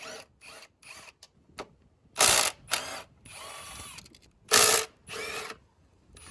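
Socket ratchet clicking in several short bursts while the bolts holding a car's strut assembly are undone, the loudest strokes about two and four and a half seconds in.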